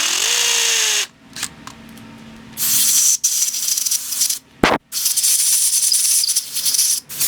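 Power drill boring deeper into a concrete anchor hole in three bursts; the motor's pitch rises as it spins up in the first burst, and there is a sharp knock between the last two bursts.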